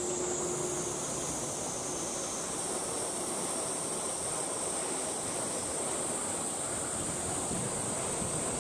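Steady outdoor ambience: wind on the microphone over an even background noise, with a constant high-pitched hiss throughout. A faint low hum fades out about a second in.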